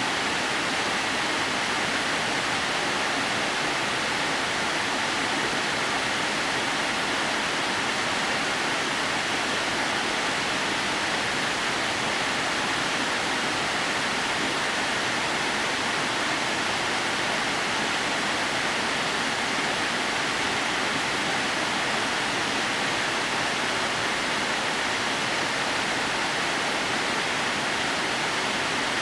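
A 30-metre waterfall spilling in thin threads down a rock face: a steady, unchanging rush of falling water.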